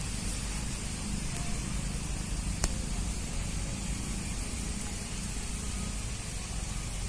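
Steady low rumbling background noise, with one sharp click about two and a half seconds in.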